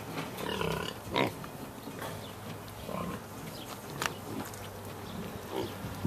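A pig grunting: a few short grunts, the loudest about a second in.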